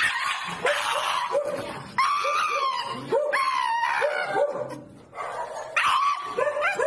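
A Shiba Inu in a plastic cone collar crying out in a run of long, shrill, wavering cries, broken by short yips: the dramatic protest known as the Shiba scream. The cries fade briefly a little after the middle, then start again loudly.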